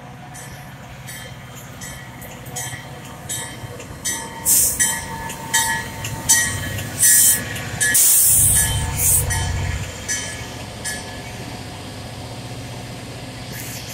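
Metra F40PH diesel locomotive arriving and passing close by as it slows, its engine a steady drone. Between about four and ten seconds in, as the locomotive goes by, there is a run of loud noise bursts with a thin squeal, typical of the brakes on an arriving train.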